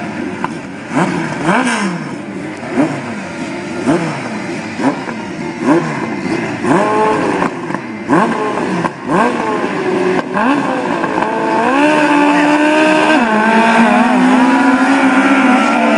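Speedway sidecar engines revving in short repeated bursts, each rising and falling. About twelve seconds in, several engines climb and are held together at high revs.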